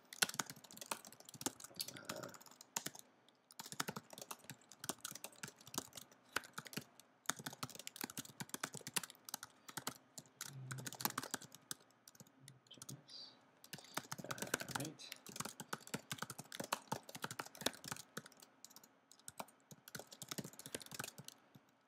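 Typing on a computer keyboard: fast, irregular key clicks in bursts, broken by short pauses.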